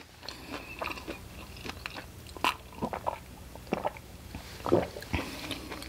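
Close-miked mouth sounds: chewing with small wet clicks, then swallowing sips from a glass near the end.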